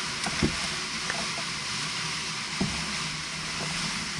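Steady hiss of wind and choppy lake water around a kayak, with two dull knocks, one about half a second in and another a little past halfway.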